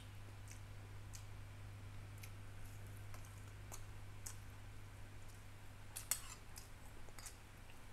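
Faint eating sounds: scattered small mouth clicks of chewing and a metal spoon scraping a glass plate, the sharpest click about six seconds in, over a steady low hum.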